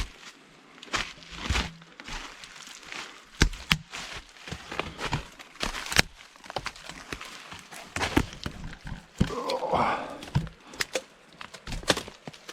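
Footsteps crunching through dry leaves and brush on a forest floor, with irregular sharp snaps and crackles of twigs and branches, and a longer rustle about ten seconds in.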